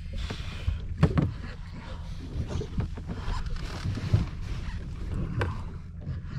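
Steady low rumble of wind buffeting the microphone and water moving around a small boat's hull, with a couple of sharp knocks about a second in and near the end.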